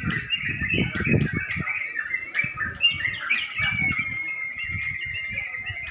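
Many caged yellow-vented bulbuls (crucukan) singing at once in a dense, overlapping chorus of chirps and trills, with one long whistled note held about midway.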